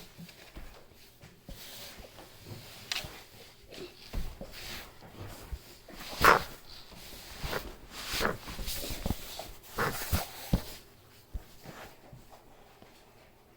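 Irregular knocks, taps and rustles of things being handled on a surface, loudest about six seconds in.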